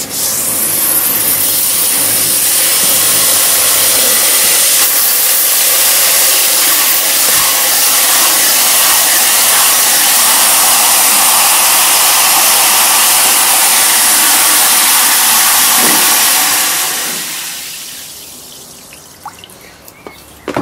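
Garden hose spray nozzle running a strong jet of water into a plastic tub of red currants: a loud, steady hiss of spray and churning water. It fades away over a couple of seconds near the end as the flow is shut off.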